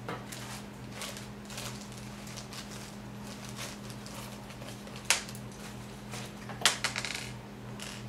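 Thin plastic bag crinkling as small solderless LED connectors are fished out of it, then one sharp click about five seconds in and a quick cluster of small clicks a second and a half later as the hard little connectors are handled and set down.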